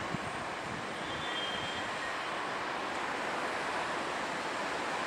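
Diesel multiple unit MT 30020 departing and running away down the track, its engine and wheels giving a steady rushing noise, with one sharp click just after the start.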